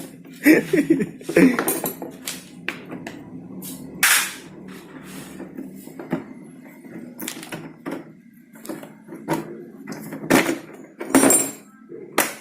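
Irregular knocks and clanks of hand tools on metal parts while a scooter is being dismantled, a few sharp ones near the end, over a faint steady hum.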